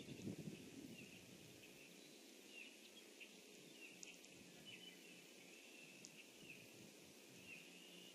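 Faint outdoor pond ambience: a steady low hiss with short high chirps repeating about once a second, and a low rustling rumble that dies away in the first half-second.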